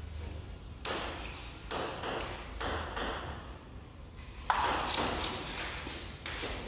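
Table tennis rally: the ball clicking back and forth off the paddles and the table, about one hit a second, each hit ringing briefly. The loudest, sharpest hit comes about four and a half seconds in.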